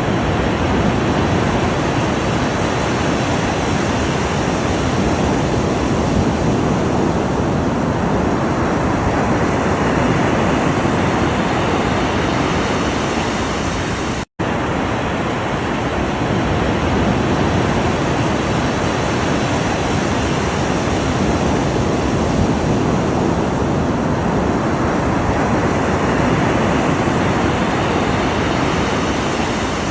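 Ocean surf, a steady, continuous wash of waves with no distinct breaks, cutting out for an instant about halfway through.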